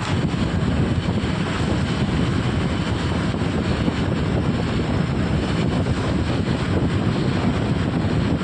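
Lathe machine running with a steady, loud mechanical noise that holds even throughout.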